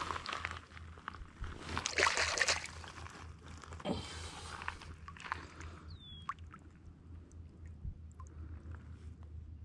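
Water sloshing and splashing in shallow lake water over stones as a caught trout is handled at the water's edge, with shoes scuffing on wet gravel. It is loudest about two seconds in and grows quieter after about six seconds, leaving scattered small clicks.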